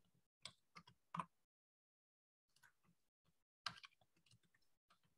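Faint keystrokes on a computer keyboard: a few scattered key clicks in the first second or so, a pause, then a short burst of keys near the end.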